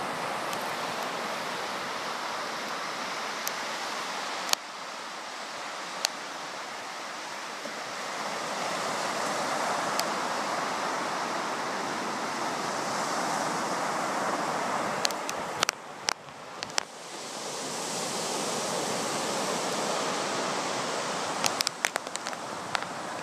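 Small surf washing onto a sandy beach, a steady rushing that swells and eases. Short sharp clicks cut through it a few times, in a cluster near the end.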